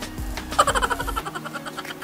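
Background music. About half a second in, a quick run of bright, rapidly repeated notes comes in, and the bass drops out a little after the middle.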